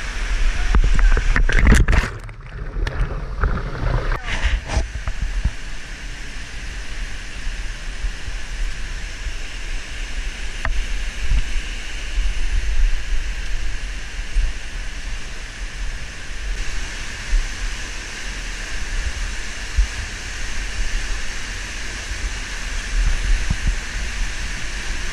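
Steady rush of a waterfall cascading down a rock canyon, with bumps and knocks in the first few seconds. The hiss of the water grows brighter about two-thirds of the way through.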